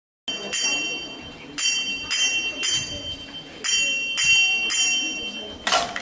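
Rhythmic strikes on a bell or other ringing metal, played as a percussion accompaniment: the strokes come in short groups of two and three, and each leaves a steady high ringing tone. Near the end a different, noisier sound comes in.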